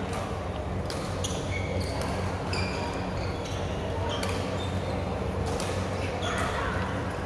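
Badminton rackets hitting a shuttlecock, sharp hits every second or so, with short high squeaks of court shoes on the floor, over a steady low hum and faint chatter echoing in a large hall.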